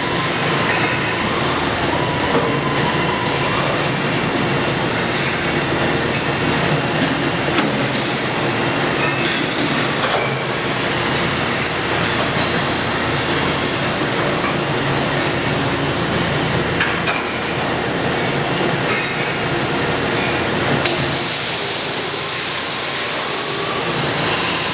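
Steady running noise of industrial machinery, with a low hum and occasional light clicks and knocks. Near the end a loud hiss lasts about three seconds.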